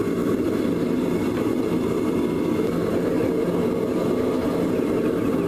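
A gas forge's burner running with a steady, even rushing noise while a length of steel pipe heats to forging temperature in the chamber.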